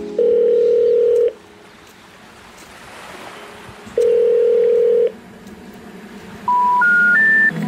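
Telephone network tones: two steady low tones about a second long each, a few seconds apart, then three short tones stepping up in pitch near the end. The three rising notes are the special information tone that comes before a recorded network announcement.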